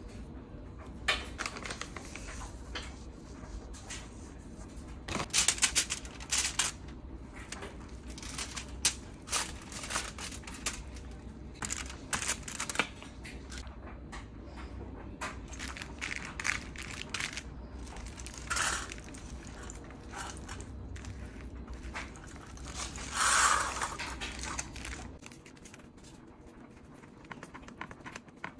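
Irregular crunching and crinkling as hands work a sticky oat-and-nut granola mixture and pack it into a foil-lined pan, with a few sharper, louder crinkles of the foil.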